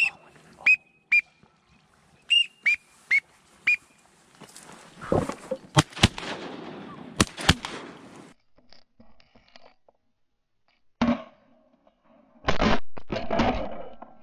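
Short, falling duck-whistle notes in quick runs, then a volley of about five 12-gauge shotgun shots from two hunters firing into a flock of ducks overhead. A single knock and a louder burst of noise follow near the end.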